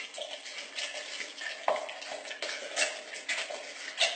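Half a grapefruit pressed and twisted by hand on a plastic citrus reamer: wet squelching and scraping in uneven strokes as the juice is squeezed out.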